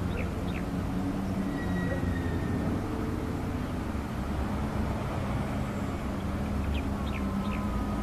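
Hitachi hydraulic crawler excavator's diesel engine running steadily with a low hum. A few short high chirps come about half a second in and again near the end.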